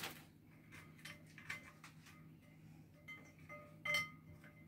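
Light clicks and taps of vanilla wafers being set into a glass bowl, a few of them with a short glassy ring; the loudest comes about four seconds in.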